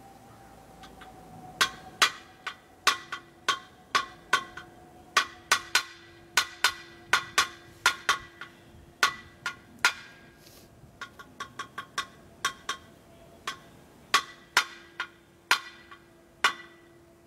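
Mallet striking metal parts of the generator's alternator: a long series of sharp taps, irregular at about two a second, with a brief pause and a run of lighter, quicker taps partway through, each strike leaving the metal ringing.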